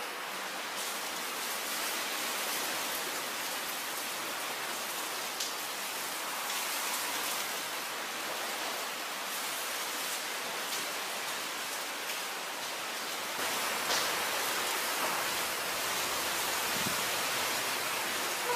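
Heavy cyclonic downpour: rain pouring steadily on roofs and trees as an even, dense hiss that swells a little about three quarters of the way through.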